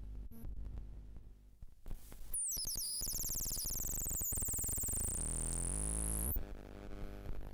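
Electronic noise music from live electronics: a low hum with scattered glitchy clicks, then from about two seconds in a dense buzzing texture with high wavering whistles above it, which cuts off abruptly about six seconds in.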